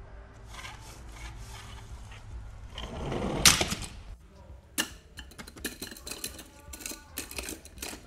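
Die-cast toy cars and trucks scraping and sliding over plastic, swelling to a loud rush about three and a half seconds in. After that comes a quick run of sharp clicks and clinks as hands rummage through a cardboard box full of the toy cars.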